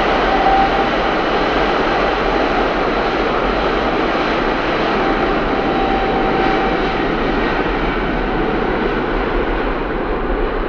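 Jet engines of Japan's government Boeing 747-400 running at high power: a loud, even roar, with a thin whine on top near the start. The roar eases off gradually towards the end.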